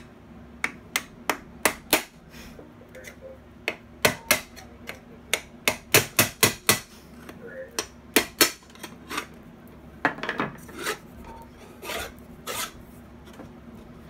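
Sharp metal taps and clicks at an irregular pace, quickest in a run about six seconds in, with a stretch of scraping around ten seconds in. They come from hand tools knocking on and working at the metal housing of a 3/4 horsepower bench grinder motor as it is being taken apart.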